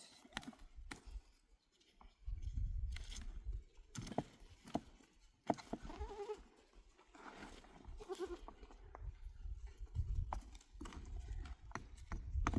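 A goat bleating twice, short wavering calls about six and eight seconds in, among scattered sharp knocks and stretches of low rumble.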